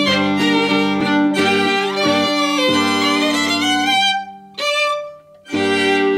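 Violin playing the closing phrase of a klezmer skotshne: a quick run of bowed notes that breaks off about four seconds in, then two separate strokes about a second apart, the second held as the final note.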